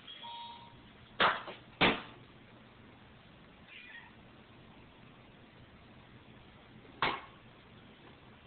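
A domestic cat making short, high meows while hunting a moth, one right at the start and a fainter wavering one about four seconds in. Three loud, sharp knocks cut through, two close together between one and two seconds in and one near the end.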